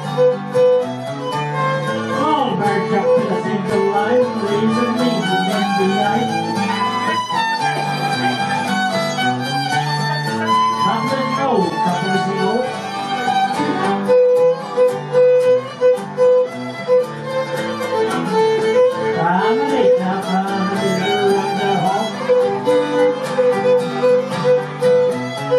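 Violin played live with the bow, a fiddle tune with sliding notes and, about halfway through and again near the end, stretches of quick repeated strokes on one pitch.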